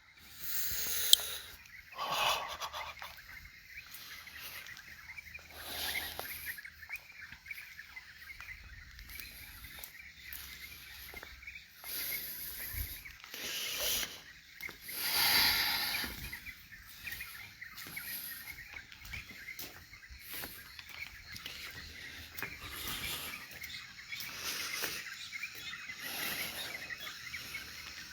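Birds calling and chirping faintly in the open air, over a background hiss that swells now and then, loudest about halfway through.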